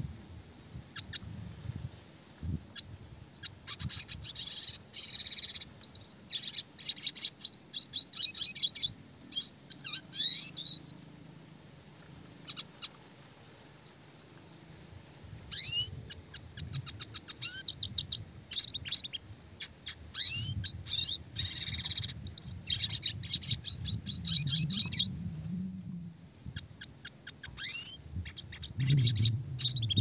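Red siskin singing in quick phrases of high chirps, sweeping notes and very fast rattling trills, with a short break midway.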